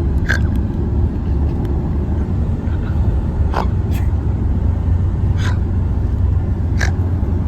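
Steady low road rumble inside a moving car's cabin, with about five short, sharp little sounds scattered through it.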